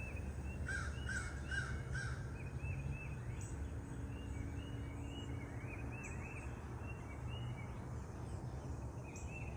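Birds calling outdoors: one bird repeats short chirps all through, and about a second in another gives a run of four quick, louder calls. A steady low rumble lies underneath.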